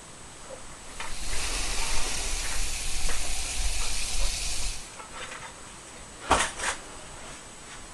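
Gas hissing out of a spray canister's nozzle held at the mouth for about four seconds, starting about a second in and stopping abruptly. About a second and a half later come two short, sharp sounds close together.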